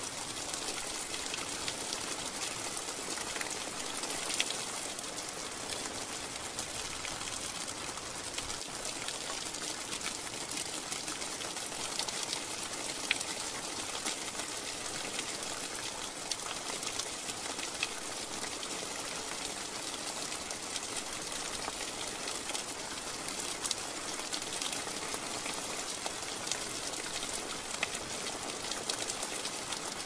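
Steady rainfall: an even, continuous hiss of rain with sharp single drop hits every so often.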